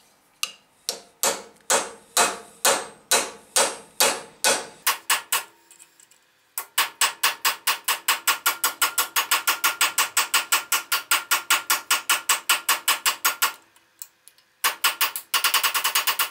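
Hammer blows on a cape chisel cutting a slot into a round steel shaft held in a vise: sharp metallic strikes, about two a second at first, then after a short pause a fast even run of about five a second, with another brief pause near the end.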